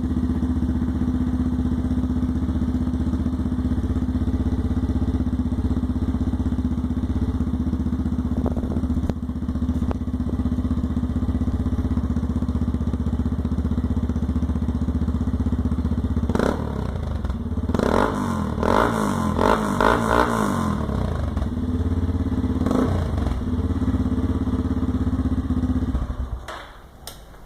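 Yamaha Lander XTZ 250's single-cylinder engine running through a Hurricane Evolution R4 aluminium sport exhaust: steady idle, then revved up several times over a few seconds past the middle, settling back to idle and switched off shortly before the end.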